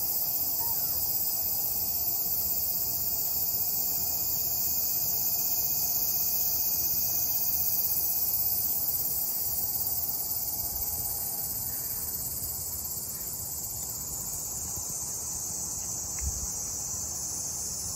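Steady, unbroken high-pitched insect chorus, with a single soft thump about sixteen seconds in.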